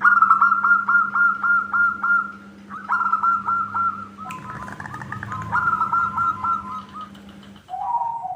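Zebra doves (perkutut) cooing: bouts of rapid staccato notes, about five a second, with two birds overlapping mid-way and a lower, drawn-out falling note near the end. A faint steady low hum lies underneath for most of it.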